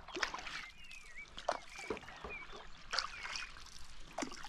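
Stand-up paddleboard paddle strokes: the blade dipping and pulling through the sea with soft splashes and trickling water, about one stroke every second.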